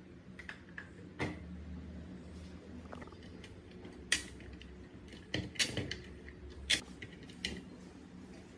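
Hand tools and metal computer parts being handled: irregular clicks, clinks and light knocks, several sharp ones bunched near the middle, over a steady low hum.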